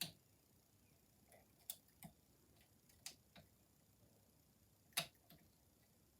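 A lever pick working inside a Chubb Cruiser lever padlock: a handful of faint, irregular clicks as the levers are lifted and checked, the loudest about five seconds in.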